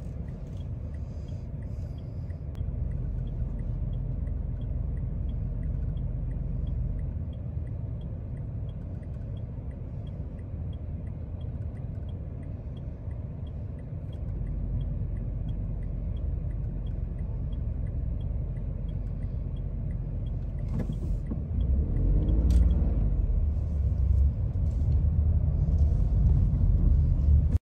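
City street traffic: a steady low rumble of engines, with a city bus standing at the stop. It swells louder in the last few seconds as traffic moves past close by. A faint ticking, about twice a second, runs under the rumble for most of it.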